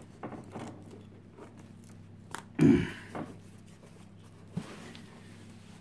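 Scissors cutting and scraping at the tape of a cardboard parcel, with short clicks and handling noises and one louder bump about two and a half seconds in.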